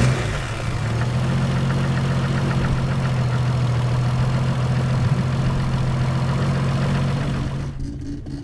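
Nissan Skyline R32 GTS-T's turbocharged straight-six engine settling into a steady idle just after starting. Near the end the idle drops away.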